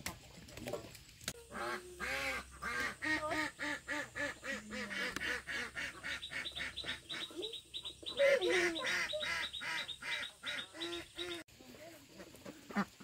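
Poultry calling in a rapid run of short repeated calls, several a second, which cut off abruptly near the end.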